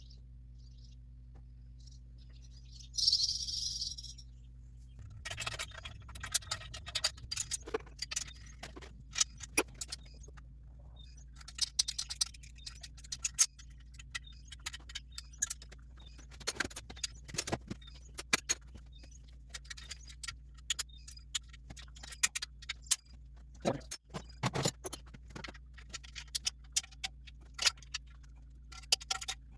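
Hand tools clicking and clinking on metal hardware while exhaust headers are bolted onto the engine, in scattered bursts and quick runs of ticks. A short hiss about three seconds in, over a steady low hum.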